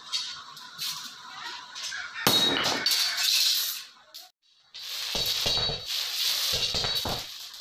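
Iron bars clanking and clinking against one another as they are handled, with ringing metallic strikes. There is a brief near-silent gap around the middle.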